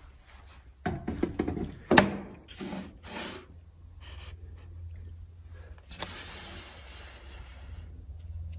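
A small metal digital angle level set down and shifted on plywood: a few knocks and short scrapes in the first few seconds, then only a faint steady low hum.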